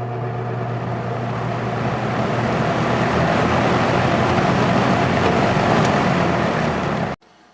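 Box fan with a General Electric motor running, its low motor hum giving way to a steadily growing rush of air as the blades come up to speed. The sound cuts off abruptly near the end.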